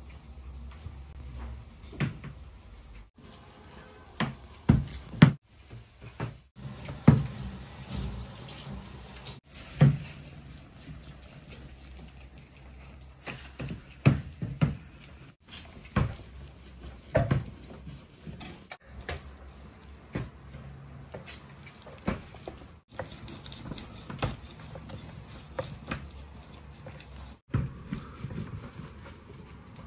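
Food-preparation sounds on a kitchen work table: irregular short knocks and taps from handling dough and utensils over a steady low hum, with a knife cutting a block of cheese on a wooden board near the end.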